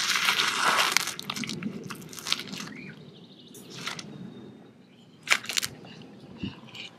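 White-throated monitor lizard crunching a thawed lobster tail in its jaws, cracking the shell. A loud burst of crunching comes in the first second, then scattered sharp cracks and chews.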